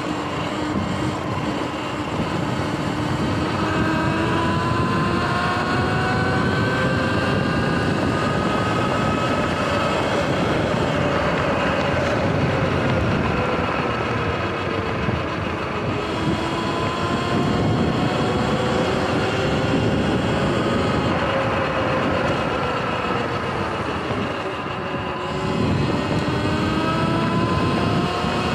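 Sur-Ron electric dirt bike's drive whine while riding, its pitch rising and falling with speed, dipping a few seconds before the end and climbing again, over wind and tyre noise.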